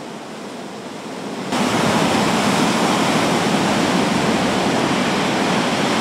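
Floodwater pouring loudly from a dam's spillway into the river during an emergency release from a flood-swollen reservoir. It is a steady, dense rush of water that jumps much louder about one and a half seconds in and then holds.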